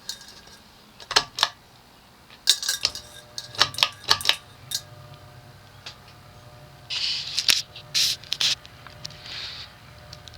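Metallic clicks and rattles, then the cast aluminum spinner motor of an Evergo S-vent ceiling fan starts about two and a half seconds in and runs with a low steady hum, a slight running moan.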